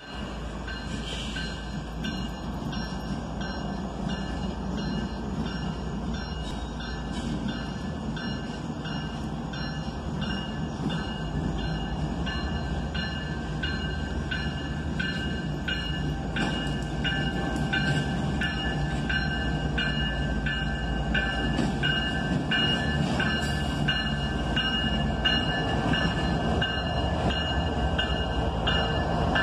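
Grade-crossing bell ringing steadily at about two strikes a second, over the low rumble of an approaching CSX diesel-led intermodal freight train that slowly grows louder.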